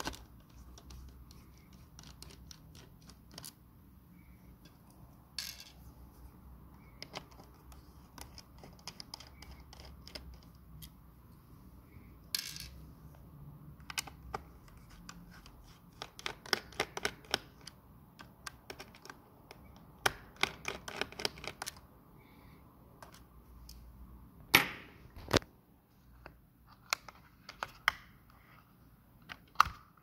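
Small screwdriver clicking and scraping as it turns the hard-drive mounting screws in an HP ProBook 430 G3 laptop: irregular light ticks, in quick runs in the middle of the stretch, with two sharper, louder clicks about 25 seconds in.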